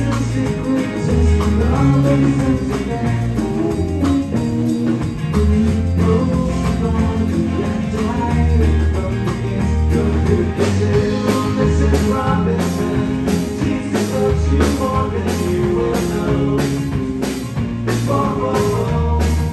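Live band playing rock-style music: a strong bass line and guitar, with sharp percussion hits coming in about halfway and sounding about twice a second.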